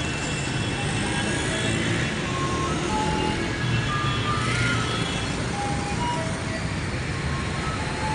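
Steady noise of busy city street traffic, motor vehicles running, with music playing in the background.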